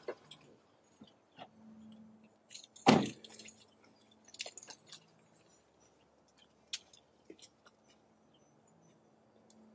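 A car door shutting once, loudly, about three seconds in, followed by keys jingling and scattered light clicks and taps over a faint steady hum.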